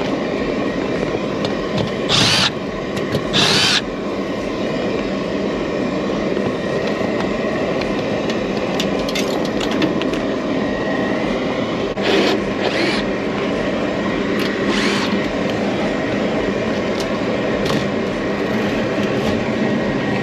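Gas rooftop unit's draft inducer fan motor running steadily, trying to start a heating cycle that gets no flame. There are five short, loud bursts of a cordless driver as the access panel is taken off.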